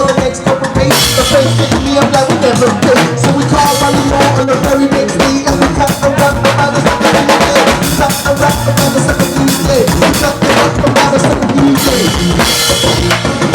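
A band playing an instrumental passage led by a drum kit, with kick, snare and rimshots over a bass line and held chords, with no singing.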